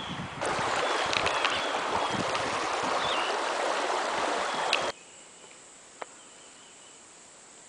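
Water rushing and splashing steadily alongside a canoe's hull. About five seconds in it cuts off abruptly to a much quieter background.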